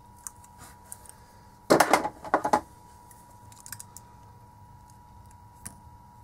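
Small metal hand tools clattering: a quick run of clinks about two seconds in, as pliers are set down and another tool is taken up. Faint clicks and scrapes follow as the tool picks at the label on a lithium-ion cell's protection board.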